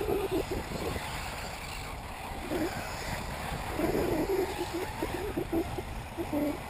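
Wind rumbling on the microphone, with faint, indistinct voices coming and going.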